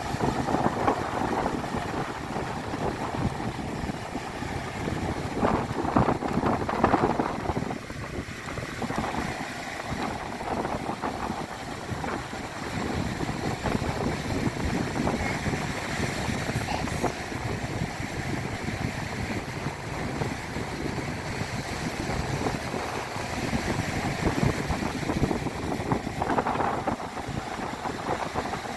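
Wind rushing over the microphone with a continuous rushing noise underneath, swelling louder about six seconds in and again near the end.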